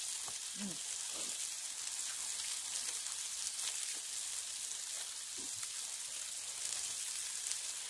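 A steady high hiss, with a few faint voices now and then.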